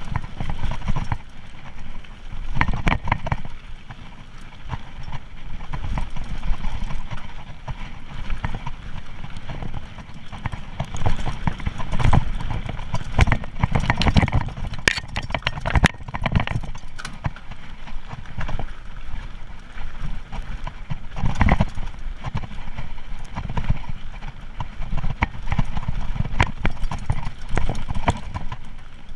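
Mountain bike descending a rough dirt and rock trail: a steady rumble of tyres over the ground, with frequent irregular knocks and rattles from the bike jolting over stones and bumps.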